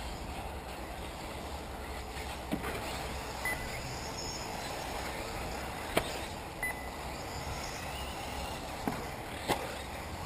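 Electric 1/8-scale RC off-road buggies running on a dirt-and-carpet track: a steady wash of motor and tyre noise with wind, broken by a few sharp knocks and a few short high beeps.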